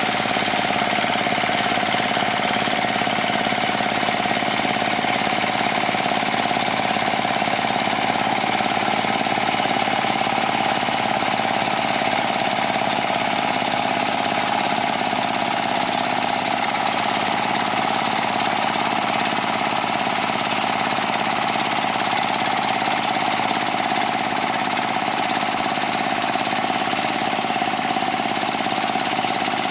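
Chinese D30 single-cylinder diesel engine running steadily under load, driving a rotary ditch-digging cutter through wet paddy mud.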